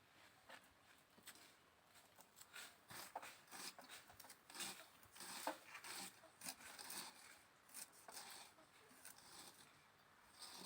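Faint, irregular cutting, snipping and tearing sounds of vegetables being prepared by hand.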